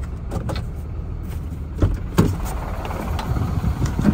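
Engine of a Ram 5500 dump truck running with a steady low rumble as it drives, heard from inside the cab. A few short knocks break in around two seconds in and again near the end.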